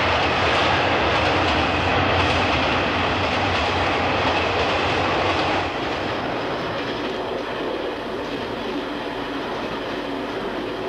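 Train running on rails at night: a loud rush of wheel and carriage noise that drops to a quieter, steady running rumble about six seconds in.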